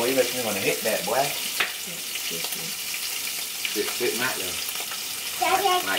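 Food sizzling steadily in a frying pan on a stovetop, with a few light knocks.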